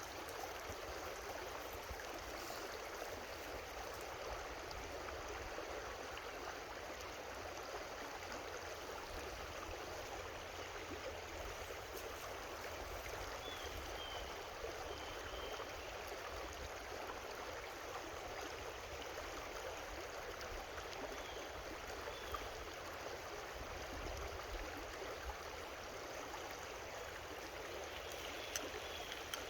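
Creek water flowing steadily, an even rushing hiss, with a few faint high chirps around the middle and near the end.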